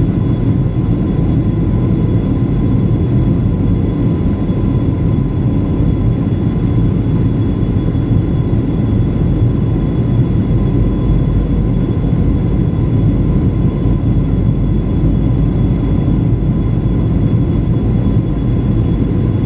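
Boeing 737-900 cabin noise during the approach: a steady rumble of airflow and the CFM56-7B engines, with a few faint, steady whining tones above it.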